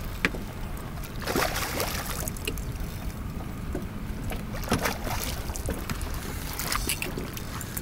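Steady wind and water noise aboard a small fishing boat, broken by a few brief splashes as a hooked black drum fights at the surface.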